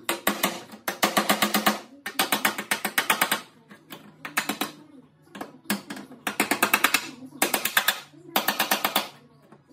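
A power tool knocking in repeated short bursts of rapid strikes, about ten a second, each burst lasting up to about a second.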